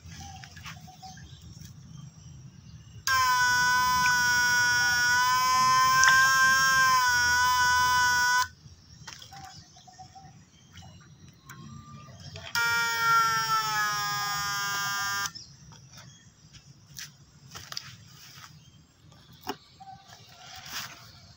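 Home-built PAC electric fish stunner whining while it is powered into the water: a steady high-pitched buzz lasting about five seconds, then a second, slightly lower buzz of about three seconds.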